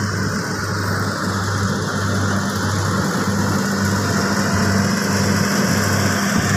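Rice combine harvester engine running steadily: a low, even hum over a mechanical rush, growing slightly louder.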